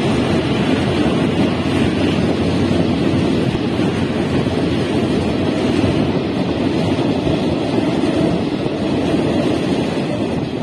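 Steady rushing wind and running rumble of a passenger train in motion, heard through an open window with wind buffeting the microphone. It eases slightly near the end.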